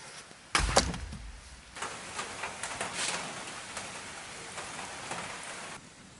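A heavy wooden thud with a sharp crack just after, as a hard piece of firewood is struck, ringing briefly. Then about four seconds of busy rustling and crackling that stops abruptly.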